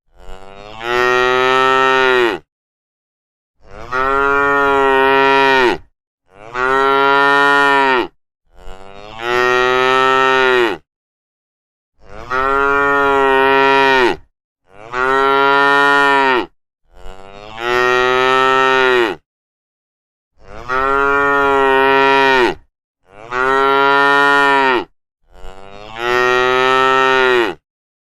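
Cattle mooing: a string of about ten long, loud moos, each roughly two seconds, one after another with short silent gaps between.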